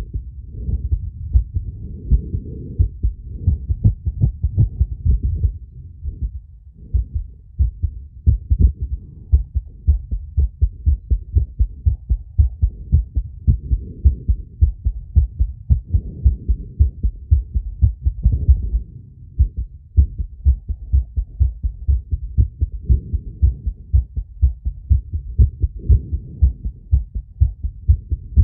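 Human heartbeat picked up by a phonocardiogram (heart-sound) sensor: a rapid, regular run of short, low lub-dub thuds, the heart beating fast around hard exercise.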